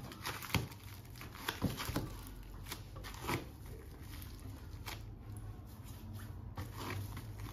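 Bamboo sushi rolling mat being pressed around a roll and then unrolled: faint rustling and clicking of the bamboo slats, with a few sharper clicks in the first few seconds.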